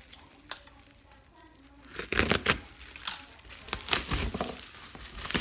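Black plastic parcel wrapping and packing tape being pulled and torn open by hand: a sharp click about half a second in, then several bursts of crinkling and ripping in the second half.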